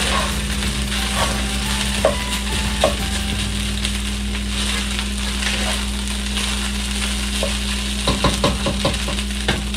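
Fried rice sizzling in a nonstick pan as it is stirred and turned with a plastic spatula, with light scrapes and knocks of the spatula against the pan, several in quick succession near the end. A steady low hum runs underneath.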